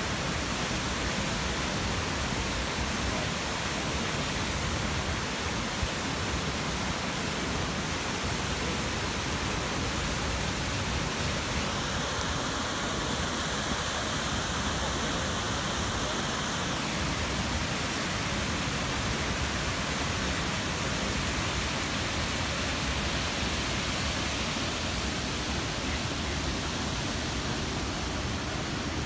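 Steady rushing of Brooks Falls, a low, wide waterfall on the Brooks River, pouring over its ledge.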